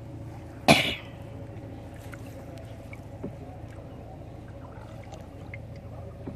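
A person coughs once, loudly, about a second in. Around it, faint trickling and dripping of water running off a gill net as it is hauled hand over hand into a wooden boat.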